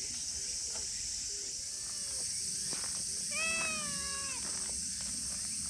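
Silver tabby cat meowing: a faint meow about two seconds in, then a longer, louder one a little past three seconds in, its pitch rising and then falling. A steady high hiss runs underneath.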